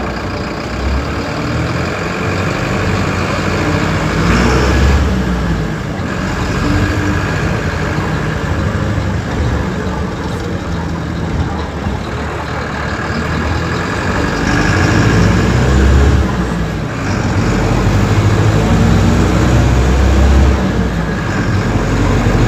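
Mercedes-Benz OF-1721 BlueTec 5 bus's six-cylinder diesel engine running, its revs and loudness rising and falling several times.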